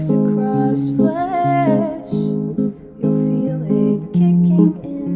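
A song with strummed acoustic guitar, and a brief sung phrase whose pitch wavers about a second in.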